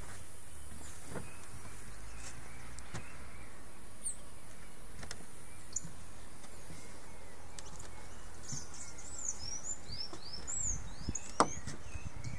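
Outdoor countryside ambience: a steady high insect buzz with scattered bird chirps. A quick flurry of chirps comes near the end, and a single sharp click sounds about eleven seconds in.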